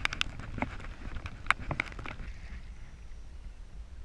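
Choppy sea water slapping and splashing against a kayak's hull, with wind rumbling on the microphone. Sharp slaps come in a quick run over the first two seconds, then it settles to a steadier low rush.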